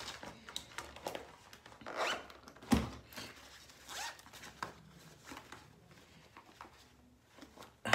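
Makeup things being handled while a bag is rummaged through: a few short zipper-like rasps and small clicks and clacks, with one sharper knock a little under three seconds in, quieter toward the end.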